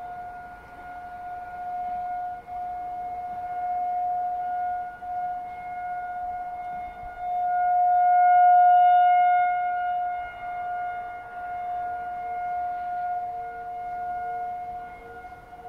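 Outdoor tornado warning siren sounding a steady tone during a siren test, swelling and fading in loudness and loudest about halfway through. In the second half a fainter, lower-pitched siren sounds along with it.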